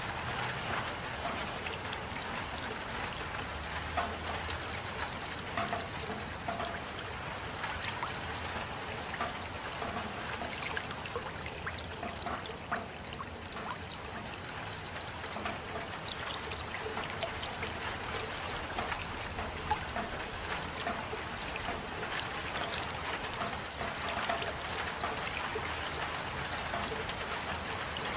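Steady rain falling, with many scattered louder drops ticking through it.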